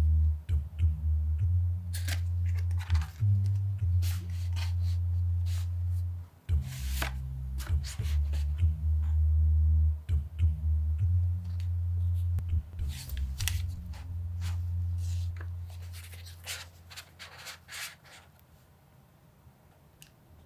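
A low, steady musical drone from the background score, with crackling and rustling of cardboard and paper as a book is slid out of its box and its pages are leafed through. Both fade to very quiet near the end.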